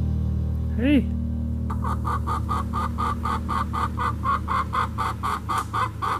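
Hen clucking in a fast, even series of about four or five clucks a second, after a single short call that rises and falls about a second in. Background music plays underneath.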